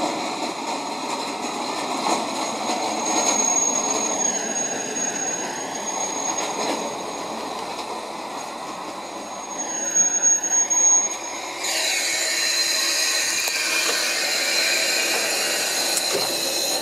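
Diesel railcar's engine idling while the train stands at the platform, a steady running sound with a thin high whine over it. About two-thirds of the way in, a brighter hiss joins and stays.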